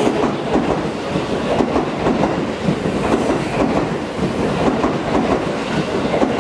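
Seibu 9000-series electric train running on the rails, its wheels clattering over rail joints and points in a steady run of clacks.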